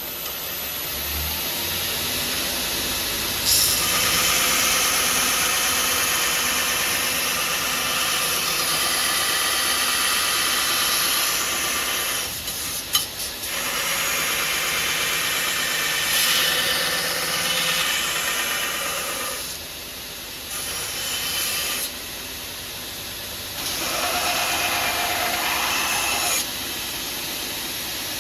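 Power grinder working a steel knife blank: a loud, steady hissing grind in several passes, with short breaks between them.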